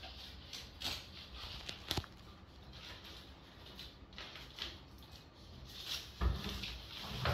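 Rustling and crinkling of a photo softbox's fabric and white diffuser cloth being handled and fitted into its silver-lined frame, with a few light sharp clicks, the clearest about two seconds in, and a dull bump near the end.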